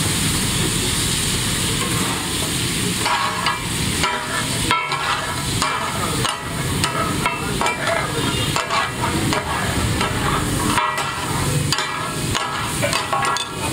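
Mutton chops sizzling on a hot tawa, with metal spatulas scraping and clanking against the griddle in quick, irregular strokes from about three seconds in.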